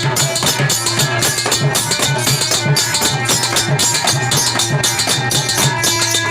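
Devotional kirtan music in an instrumental passage: a drum keeps a steady beat of about three strokes a second under sustained melodic notes.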